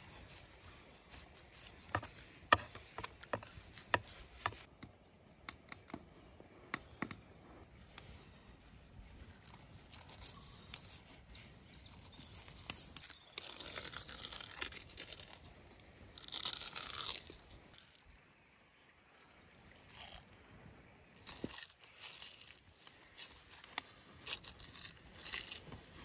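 Thin membrane being cut and peeled off a raw beef liver on a wooden board. Scattered sharp knife clicks and taps come first, then longer wet tearing sounds as the skin is pulled away by hand, loudest around the middle.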